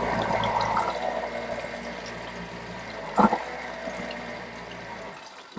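Fresh water spraying from a hand shower into a marine toilet bowl, rinsing out the bowl and its line, getting gradually quieter; a short knock about three seconds in.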